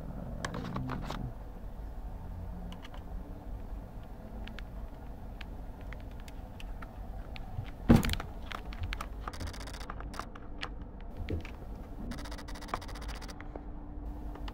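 Scattered small clicks and scrapes of a screwdriver working at the screws on the underside of a laptop, with one sharp knock about eight seconds in.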